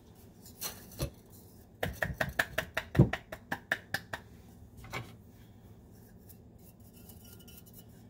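Stainless steel coffee-grinder cup being knocked against the rim of a metal mesh strainer to empty out citrus powder: a couple of single clicks, then a quick run of about five or six metal taps a second, with one more tap afterwards.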